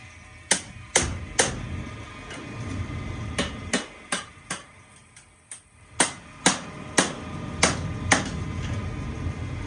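A crooked sheet-metal furnace part being struck about a dozen times to knock it back flat: sharp metallic bangs, three quick ones, a run of five, then five more at about two a second.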